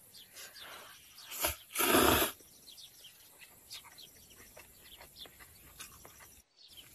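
A person slurping noodles: a short suck about a second and a half in, then a louder half-second slurp. Birds chirp faintly in the background.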